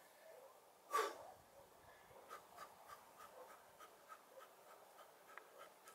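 A man gives one short, sharp exhalation about a second in as he starts a martial-arts exercise. After it comes faint, even ticking, about three ticks a second.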